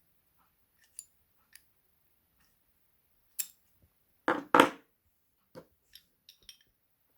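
Metal clicks and clacks from handling a Fichet 484 lever lock and tools: a few light clicks, then two loud clacks close together a little past the middle, followed by small ticks.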